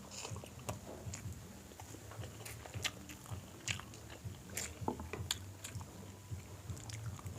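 Close-up chewing and biting of food, with scattered short crisp crunches and mouth clicks over a faint low hum.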